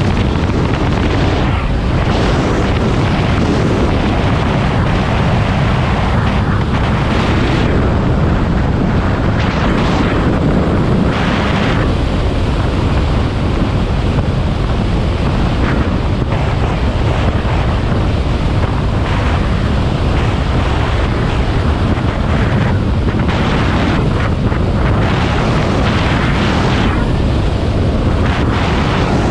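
Steady wind rush over the microphone of a Honda CB500X motorcycle riding at speed, loud and unbroken, with the bike's running mixed in beneath it.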